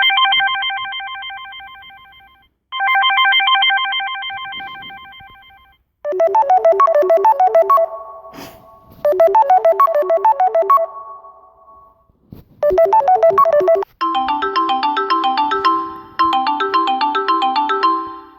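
Samsung Galaxy S5 ringtones played one after another through the phone's speaker. Short electronic melodies, each phrase played about twice before a different tune starts; the last one has a low bass line under it.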